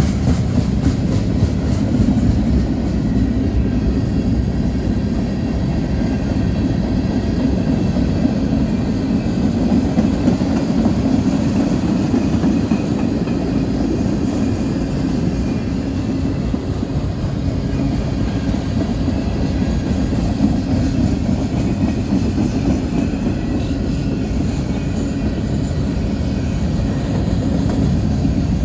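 CSX mixed freight train's cars rolling past at close range: a steady, loud rumble of steel wheels on the rails.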